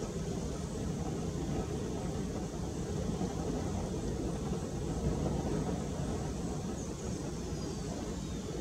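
Steady low rumbling background noise, with no clear call from the screamer. Faint, high, falling whistles come in near the end.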